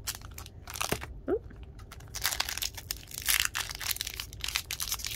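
Trading-card pack wrapper being crinkled and torn open by hand: a few light clicks, then from about two seconds in a dense run of crackling, tearing rustles.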